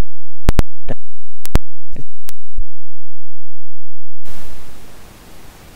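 About eight sharp, separate clicks in the first three seconds, then a steady hiss that starts about four seconds in.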